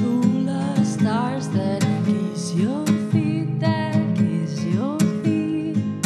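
Acoustic guitar playing a song, with a melody line that slides up into its notes several times.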